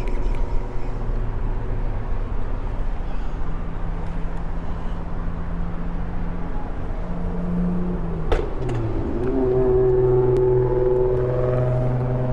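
Steady engine drone with several humming tones. A sharp click comes about eight seconds in, and the hum then shifts in pitch and grows louder.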